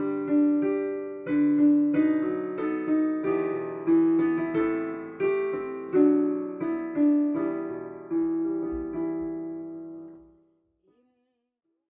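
Solo piano music playing a slow closing phrase of separate struck notes; the last chord fades out about ten seconds in and silence follows.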